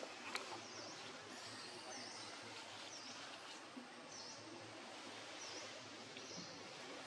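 Outdoor forest ambience: a steady hiss with a short, high, dipping chirp repeating about once a second, and one sharp click just after the start.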